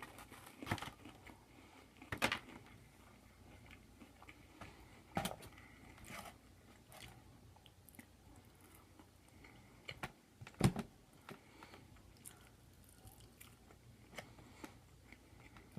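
A person eating close to the microphone: quiet chewing and mouth sounds over pasta and meat, with a few sharp clicks or smacks, the loudest about two, five and ten and a half seconds in.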